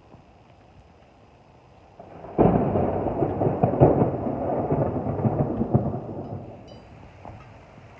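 Thunderclap: a sudden loud crack about two and a half seconds in, then a rolling, crackling rumble that fades away over the next few seconds.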